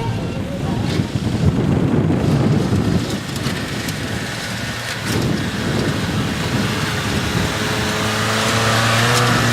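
Off-road vehicle engine running under load with a rough, uneven rumble, settling into a steadier drone near the end.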